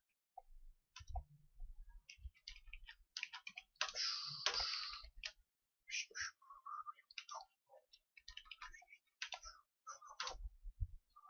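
Scattered faint clicks of a computer mouse and keyboard during Photoshop selection work, with a brief hiss about four seconds in.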